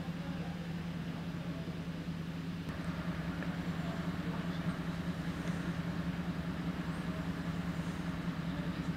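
An engine running steadily at idle, a low even drone with no change in pitch.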